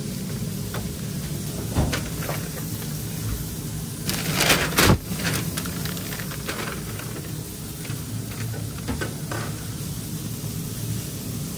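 Plastic sauce cups clicking and knocking as they are handled and set down on a steel counter, over a steady low kitchen hum. About four seconds in there is a louder, brief clatter.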